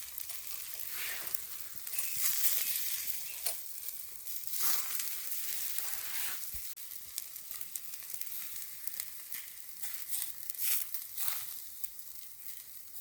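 Chicken skewers sizzling over a charcoal fire, a steady hiss broken by sharp pops and crackles. It drops in level a little past halfway.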